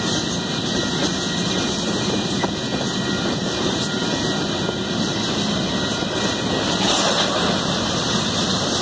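Freight train of covered hopper cars rolling past, a steady rumble and rush of steel wheels on rail.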